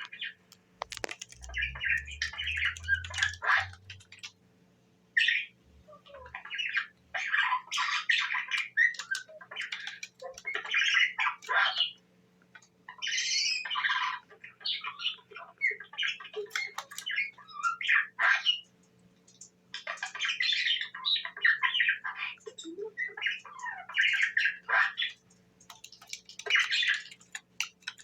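Budgerigar chattering and squawking in quick bursts of chirps, with short pauses between bursts.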